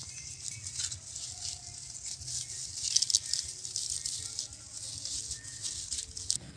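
Dry straw and dead grass crackling and rustling as a puppy walks and noses through it, a dense run of small crackles that peaks about three seconds in.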